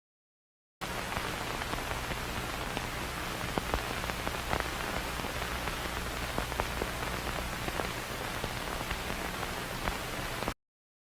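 Steady hiss of static or recording noise with a faint low hum and scattered crackling clicks, starting abruptly after a moment of dead silence and cutting off suddenly near the end.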